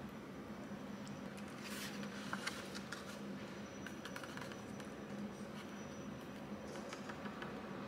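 Faint crinkling and small taps as fingers fold and press down the paper lid of an instant cup noodle cup, in a few short bouts, over a steady low hum.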